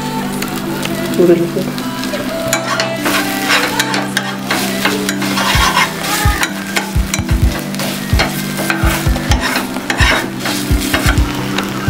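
Sliced onions in red masala paste frying and sizzling in a nonstick pan while a flat metal spatula stirs them, with frequent scrapes and taps of the spatula against the pan.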